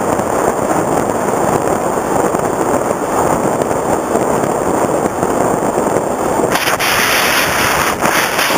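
Steady rushing of wind and propeller noise picked up by the onboard camera of an FPV Raptor RC plane in flight. About six and a half seconds in, the sound turns brighter and hissier.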